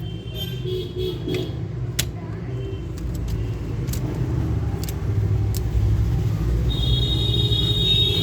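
A steady low rumble with a few sharp clicks spread through it, and a high steady tone that comes in near the end and holds.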